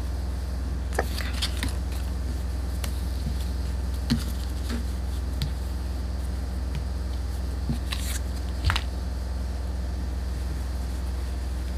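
Cotton fabric and a plastic ruler being handled on a table while a bag handle is measured and fixed in place: scattered light rustles and clicks, the loudest about four and eight seconds in, over a steady low hum.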